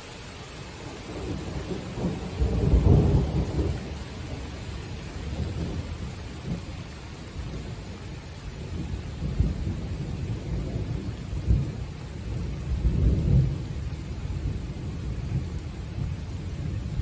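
Summer thunderstorm: steady rain with thunder rumbling in long rolls. The loudest roll comes a few seconds in, and further rumbles follow through the rest.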